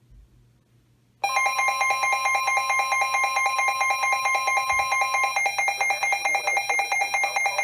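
Emergency Alert System attention tone on weather radio: a loud, steady electronic alarm of several fixed pitches. It comes in suddenly about a second in, and one of its tones drops out a few seconds later. It signals the start of a new weather alert.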